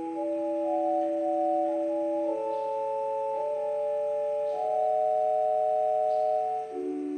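Organ playing slow, held chords in a quiet prelude; each chord is sustained without fading and moves to the next every second or two.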